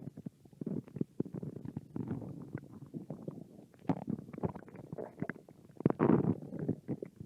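Human stomach growling from hunger: an irregular run of bubbly gurgles and rumbles, with the loudest gurgle about six seconds in.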